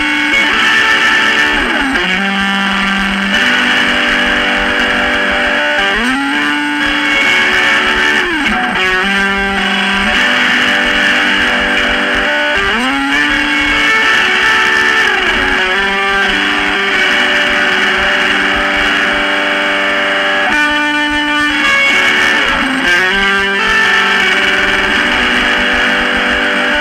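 Lo-fi, noisy emo / math-rock recording with a distorted electric guitar. It plays a repeating figure of notes that slide up into held tones, the figure coming round about every six to seven seconds over a dense wash of sound.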